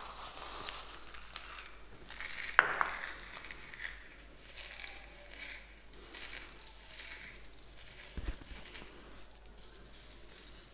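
Fine sev (crisp fried gram-flour noodles) scooped and sprinkled by hand over a plate of chaat: faint crunchy rustling with light crackles. A sharp click about two and a half seconds in and a short low thump near the end.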